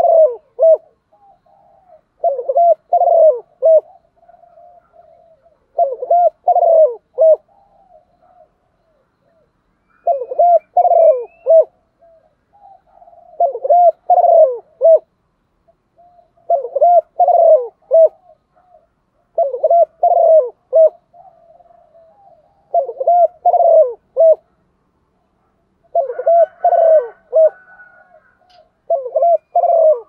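Female spotted dove cooing: short phrases of three or four low coos, repeated about every three seconds, with one longer pause partway through.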